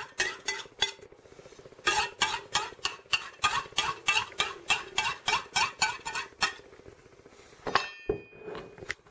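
A knife blade trimming pastry against the rim of a pie plate, scraping in quick even strokes about three a second, with a short pause about a second in. Near the end a single clink with a brief ring.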